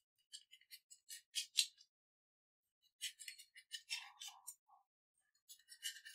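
Knife blade cutting through spongy khaman dhokla and scraping and clicking against the bottom of the steel plate. It comes in three short runs of light, high scrapes.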